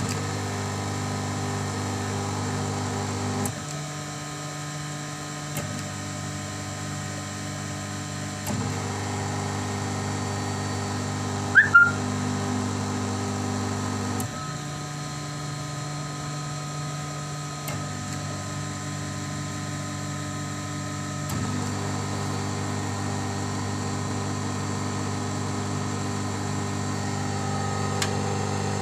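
Electric motor of a pig-roasting rotisserie machine, under an Arduino speed controller, running with a steady hum whose sound shifts in steps several times as its speed setting changes. A short, sharp high chirp stands out as the loudest sound about twelve seconds in.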